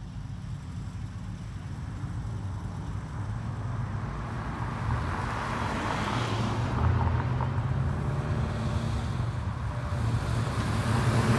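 Car engines rumbling at low speed as cars drive past one after another. The sound grows steadily louder, with a swell of road noise in the middle, and is loudest near the end as a car comes close.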